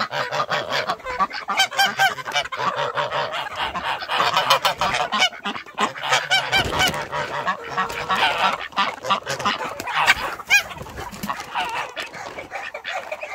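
A flock of poultry calling loudly, many cries overlapping one another throughout, with short clicks and knocks among them.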